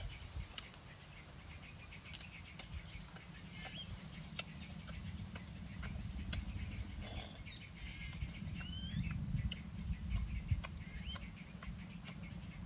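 Birds chirping in short calls, some gliding up and down in pitch, over scattered sharp clicks and a low rumble.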